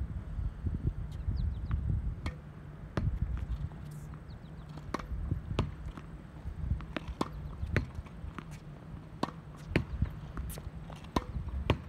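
Tennis ball rally against a practice wall: a string of sharp pops as the racket strikes the ball and the ball hits the wall and bounces on the hard court, roughly every half second to second, over a steady low rumble.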